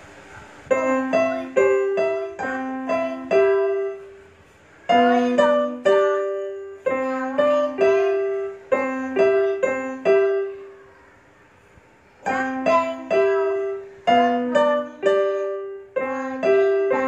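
Digital piano played note by note in a simple, slow melody, each note struck and fading. The tune comes in three short phrases with a pause after the first and a longer one after the second.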